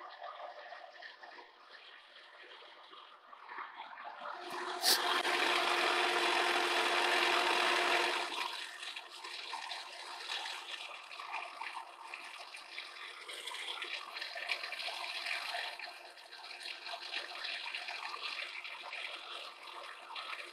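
Lucas horizontal boring mill running a shop-built fly cutter across the end face of a steel column: a steady hiss of cutting with a faint steady hum under it. It grows louder for a few seconds about five seconds in, starting with a sharp tick, then settles back.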